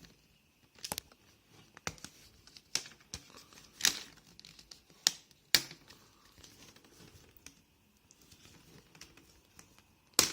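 Plastic screen bezel of an Acer Chromebook 13 being pried off by hand: sharp clicks and cracks, roughly one a second, as its snap-in retaining clips pop loose. A loud snap comes near the end.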